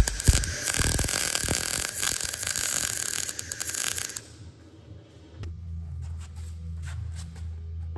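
MIG welder laying a bead on thin car-body sheet steel: the arc crackles densely for about four seconds, then stops. After that a low steady hum with a few clicks.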